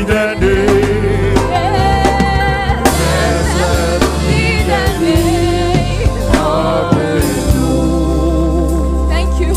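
Live gospel worship music: sung voices with vibrato over bass and a drum kit keeping a steady beat.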